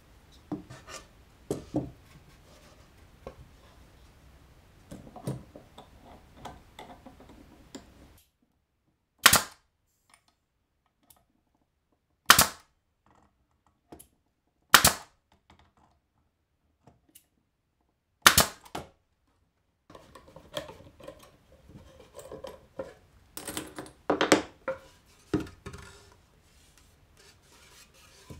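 Pneumatic nail gun firing four times, a few seconds apart, each a sharp crack, nailing a glued plywood corner joint. Before and after the shots, lighter knocks and clicks of plywood pieces and metal clamps being handled.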